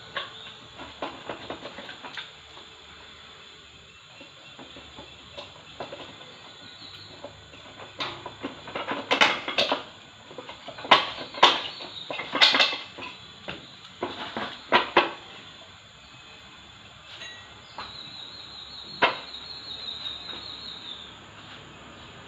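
Irregular sharp metallic clicks and clanks of hand tools and parts being handled in repair work on a car, with a dense, louder run of knocks in the middle.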